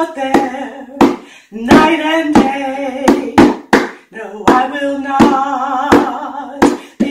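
A woman singing a worship-song chorus, her voice wavering with vibrato on held notes. She accompanies herself on a pair of hand-struck bongo drums, about two strikes a second.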